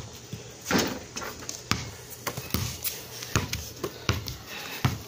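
Basketball bouncing on a concrete court: several thuds at uneven intervals, about one a second.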